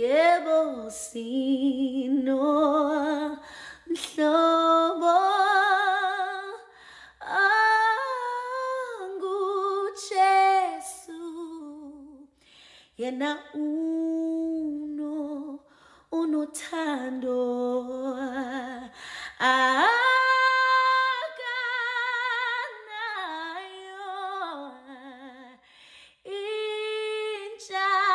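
A woman singing a slow gospel melody unaccompanied, holding long notes with vibrato in phrases of a few seconds with short breaks between them.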